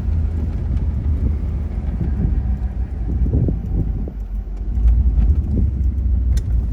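1966 Chevrolet Impala SS's 327 V8 running steadily, heard from inside the open-top convertible.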